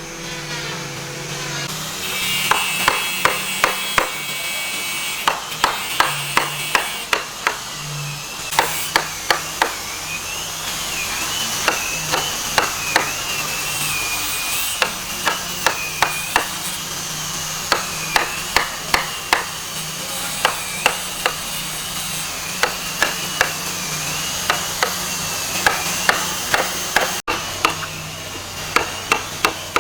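Hammer striking wood in quick runs of three to five blows, with short pauses between the runs. A steady high whine that wavers slightly in pitch and a low hum run underneath.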